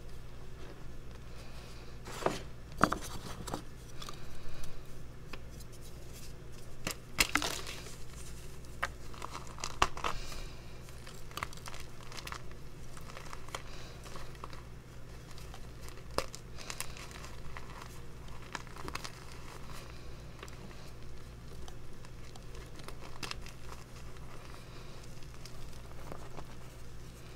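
Hands crushing and squeezing handfuls of crumbled reformed gym chalk: a steady crunching and crumbling, with a few louder snaps in the first ten seconds.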